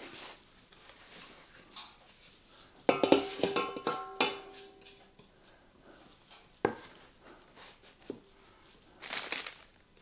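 Kitchen utensils clinking and knocking against metal cookware. There is a quick run of ringing clinks about three seconds in, a single knock later, and a short rustle near the end.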